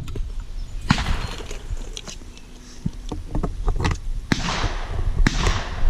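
A series of sharp metallic clicks and knocks from a break-action shotgun being opened and reloaded between targets.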